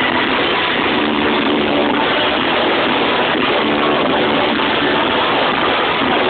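Live rock band playing through a loud stage PA, heard as a dense, steady wash of sound, with a few held notes showing through.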